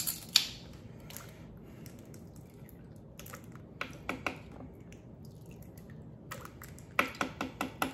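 Light clicks and clinks of a ring of measuring spoons being handled while lemon juice is measured out. There is one sharp click about a third of a second in, a few faint ticks, and a quick run of clicks near the end.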